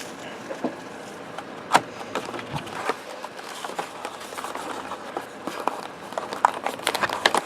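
Hands opening a sealed cardboard box of trading cards, with scattered clicks, taps and rustles of the packaging at irregular times.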